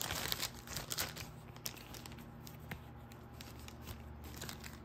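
Clear plastic packaging crinkling and rustling as it is handled, busiest in the first second or so, then fading to faint rustles and light handling clicks.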